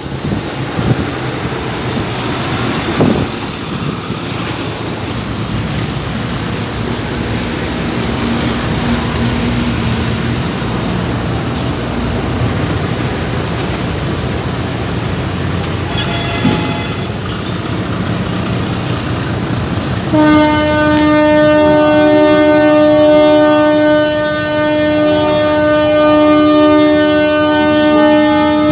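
Steady background noise, then about twenty seconds in a loud horn starts one long, steady blast with several pitches sounding together, held to the end.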